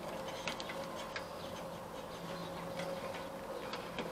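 Faint, irregular light clicks and ticks of hands handling the plug and small parts at the riding mower's carburetor, over a faint steady hum.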